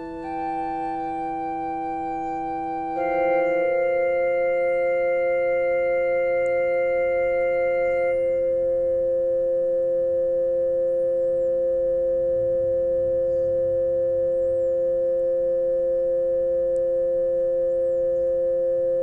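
Yamaha PSR-E263 portable keyboard playing a built-in song: notes change twice near the start, then one chord is held steady without fading for about sixteen seconds.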